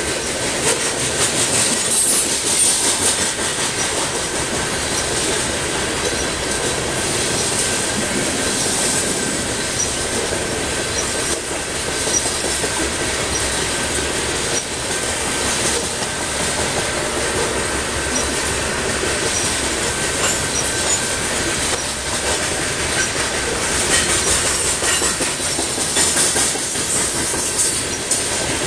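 Freight train of covered hopper cars rolling steadily past, steel wheels clacking over the rails, with a thin steady squeal from the wheels.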